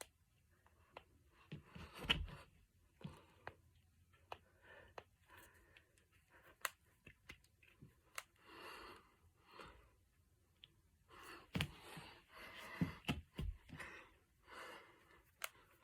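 Finger knuckles being cracked: sharp single pops at irregular intervals, some in quick clusters. Softer hissing sounds fall between them, several lasting about a second.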